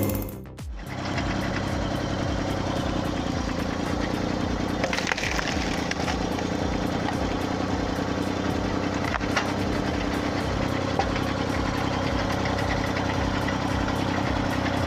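Engine of a log-splitting machine running steadily, with a few sharp cracks of wood.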